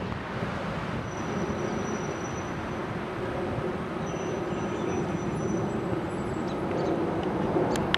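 Steady rumble of urban road traffic with a low hum running through it. Two thin, faint high squeals each last a couple of seconds, and a short sharp click comes near the end.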